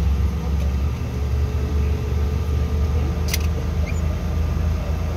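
Steady low rumble inside the cabin of a Bombardier CRJ900 jet rolling on the ground with its engines running, with a faint steady hum over it. A single sharp click about three seconds in.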